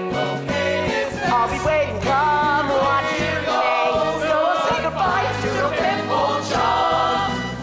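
Musical-theatre song: a group of voices singing together over an instrumental accompaniment with a steady stepping bass line.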